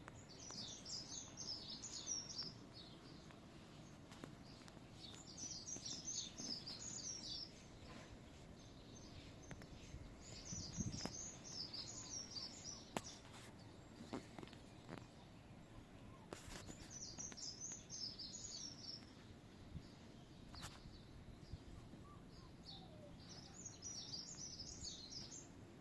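A songbird singing the same short, quick phrase of high chirping notes five times, with a pause of a few seconds between phrases, over faint outdoor background noise.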